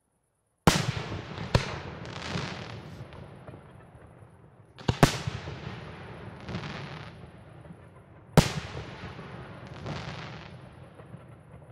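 Aerial firework shells bursting, starting about a second in: three sharp bangs, roughly one every three and a half seconds. Each is followed by a softer second report and a long rolling echo.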